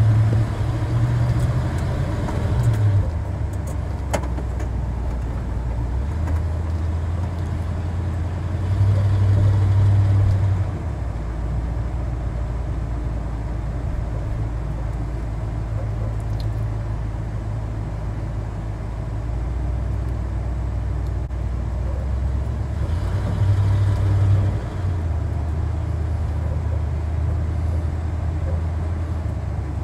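Old Chevy K20 pickup truck driving in town, heard from inside the cab: a steady low engine drone with road noise. It swells louder three times, at the start, around nine seconds and around twenty-three seconds, then settles back.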